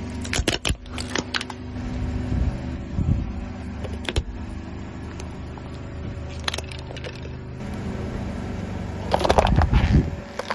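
Car engine running steadily while objects under its tyres crack and crunch in short sharp snaps, with a louder run of crunching near the end.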